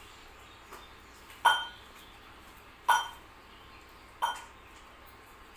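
Stainless-steel bowl and plate clinking against each other three times, about a second and a half apart, each clink ringing briefly, after a fainter tap.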